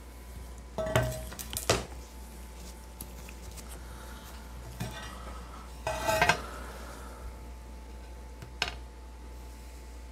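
Ceramic tile being handled and set down on the work table: two sharp clinks about a second in, a cluster of clinks with a brief ring around the middle, and a lighter knock later.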